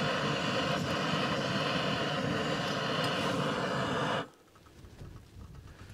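MSR Pocket Rocket 2 gas canister stove burning with a steady hiss under the pot, shut off suddenly about four seconds in.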